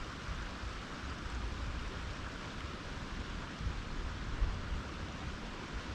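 Steady rush of flowing creek water, with wind rumbling unevenly on the microphone.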